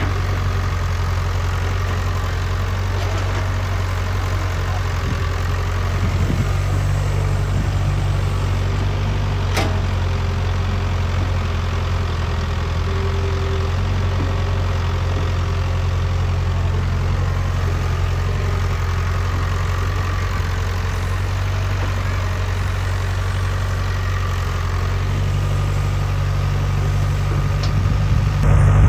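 Excavator's diesel engine running steadily, working a little harder about six seconds in and again near the end, with one sharp click in the middle.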